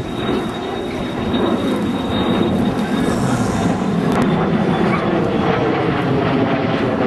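B-2 Spirit stealth bomber flying past, the steady rushing rumble of its jet engines growing louder about a second in.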